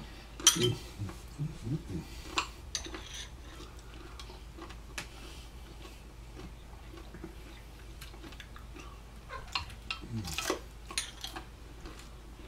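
Spoon and other cutlery clinking and scraping against glassware and a metal platter while eating: a cluster of sharp clicks in the first few seconds, a quieter stretch, then another cluster about ten seconds in.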